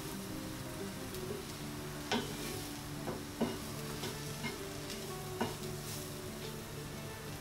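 Diced vegetables sizzling in oil in a stainless steel pan as a spatula stirs them, with a few sharp knocks of the spatula against the pan, four of them spread through the middle of the stretch.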